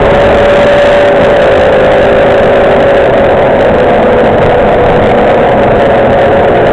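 MCW Metrobus Mk2 double-decker heard from inside the passenger saloon: steady engine and running noise with a whine that slowly falls in pitch.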